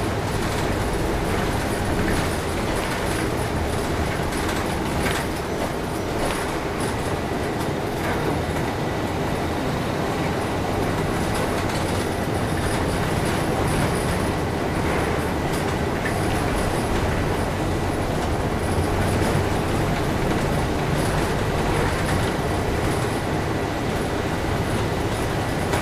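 Steady ride noise inside a moving city bus: engine rumble and tyre noise on a wet road, with a few short clicks and knocks along the way.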